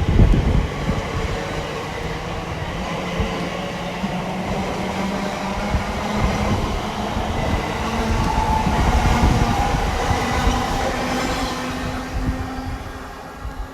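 Class 345 electric multiple unit pulling out of the station: a steady rumble of wheels on track, with an electric traction whine that slowly rises in pitch in the second half, fading near the end.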